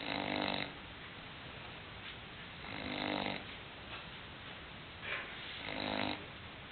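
English bulldog snoring in its sleep: three snores about three seconds apart, each lasting under a second, with a short, fainter breath just before the third.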